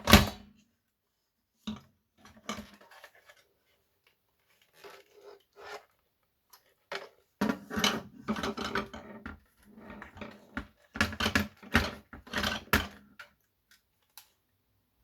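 Clicks, knocks and rattles of a plastic-cased tape dictation machine being handled and taken apart. A sharp knock comes right at the start, then scattered clicks, then a busier stretch of rattling and knocking through the second half.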